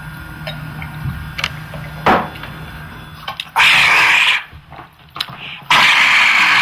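A man drinks from a glass, with small mouth and glass sounds over a low hum. He then lets out two loud, breathy open-mouthed exhales, one about three and a half seconds in and one near the end.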